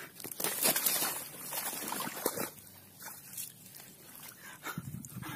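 A freshly caught tilapia flapping and thrashing as it is grabbed by hand, with irregular rustling and slapping. The sound is busiest in the first two and a half seconds, then thins to a few scattered knocks.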